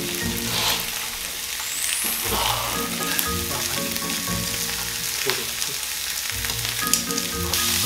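Pork belly sizzling in a hot frying pan on a portable gas stove, a steady hiss of fat frying as the slices are turned with metal tongs.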